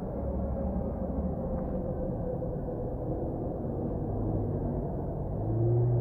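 A car driving slowly across a snow-covered lot: a low engine hum over steady rumble, growing louder near the end with a short rising note.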